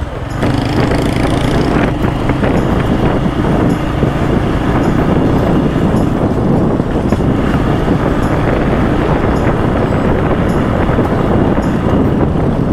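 Motorcycle riding along a dirt lane: the engine runs steadily under dense wind and road noise on the rider-mounted camera.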